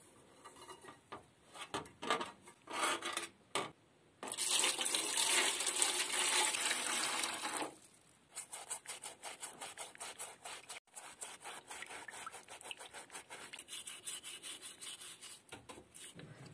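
Rustling and handling of wire against a metal tray, then a continuous rush of water into the sheet-metal tray for about three and a half seconds. After that comes rapid back-and-forth scrubbing of a small bristle brush on the rusty steel bar of the nail puller, several strokes a second.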